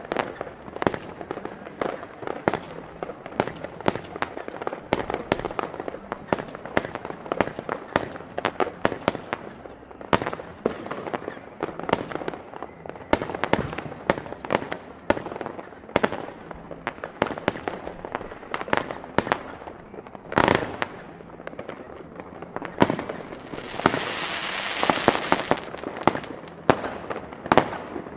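Fireworks going off continuously: a dense run of sharp bangs and crackles, with one heavier bang about twenty seconds in and a steady hiss lasting about three seconds near the end.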